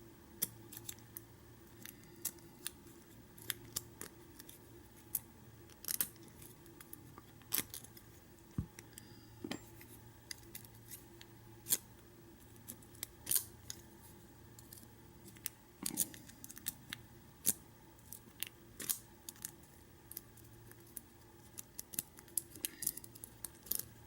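Lock pick and tension wrench working in the keyway of an American 600 padlock: small, irregular metallic clicks and scrapes, a few a second. The pins feel frozen and aren't moving.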